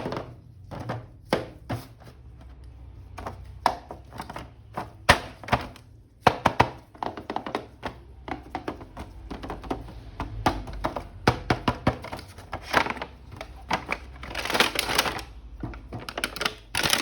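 Plastic action-figure packaging and a hard plastic toy being handled: an irregular run of sharp clicks and knocks, with a longer rustle near the end.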